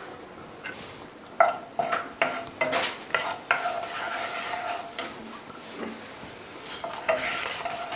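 Hot peanut oil sizzling in a nonstick kadai around freshly added ground cinnamon, clove and cardamom, while a wooden spatula stirs and scrapes across the pan in a series of short strokes starting about a second and a half in.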